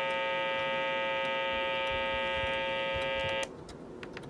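Weather radio broadcast glitching into a steady, harsh buzzing tone in place of the forecast audio. It cuts out for under a second near the end, then resumes.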